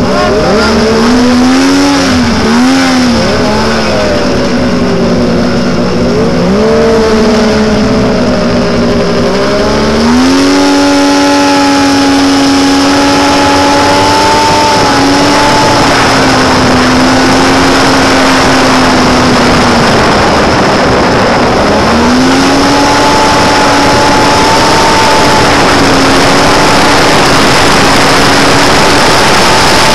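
Snowmobile engine running under way, its pitch wavering up and down at first, then climbing about ten seconds in and holding a steady higher drone with a few brief dips, over a steady rushing noise.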